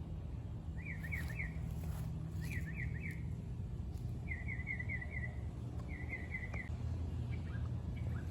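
A songbird singing a short phrase of four or five quick down-slurred chirps, repeated four times about every second and a half to two seconds, over a steady low rumble.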